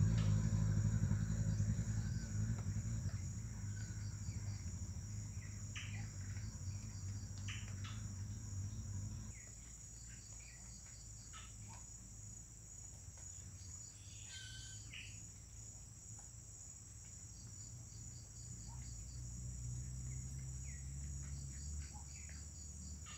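A steady high-pitched insect chorus, like crickets trilling. Under it a low engine hum from a vehicle fades out about nine seconds in, and a fainter one returns near the end. A few short bird chirps come through now and then.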